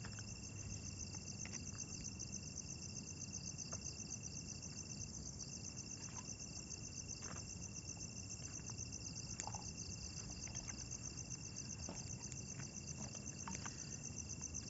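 Night insects, crickets, chirring steadily: one keeps up a fast, even pulsing trill high in pitch while another holds a steady high whine, with a few faint scattered clicks.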